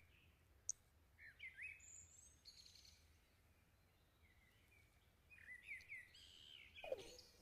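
Near silence with a few faint bird chirps, a cluster about one and a half seconds in and another around six seconds in.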